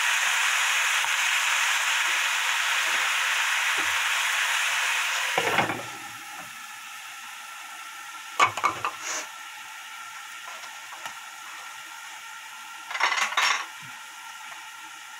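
Pork skin and vegetables sizzling loudly in a frying pan just after a spoonful of water goes in. About five and a half seconds in a glass lid goes on with a clatter, and the sizzle drops to a quieter hiss under the lid as the food steams, with a few brief knocks later.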